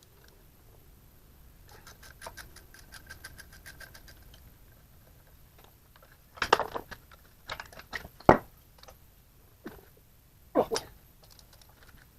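A ratchet wrench clicking rapidly for a few seconds as a loosened brake caliper bracket bolt is spun out, then several sharp metal clanks of tools and parts being handled and set down.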